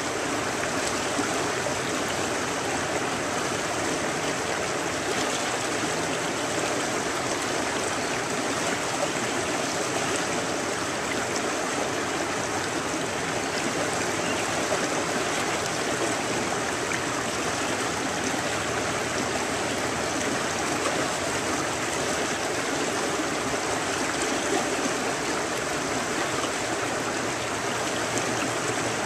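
Shallow river flowing steadily over riffles, a constant, even sound of running water.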